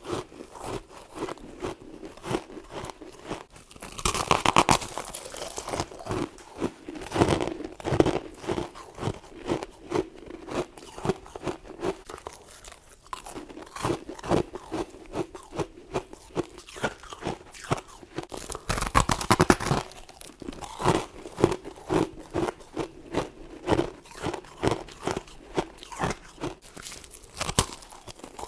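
A person biting into and chewing frost scraped from a humidifier-fed freezer, in a run of crisp crunches. There are louder, longer crunching bites about four seconds in and again around nineteen seconds, with steady chewing crunches between them.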